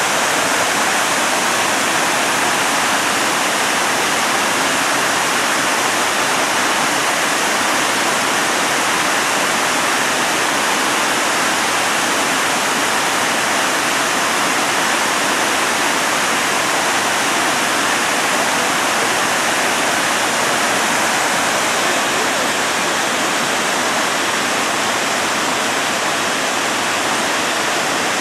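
Water pouring over a river weir, the Pulteney Weir on the River Avon, in a steady, unbroken rush.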